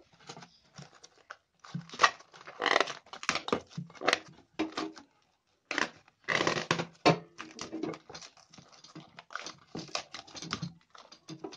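Plastic cling wrap crinkling and rustling in irregular bursts as it is pressed and smoothed around the rim of a steel bowl.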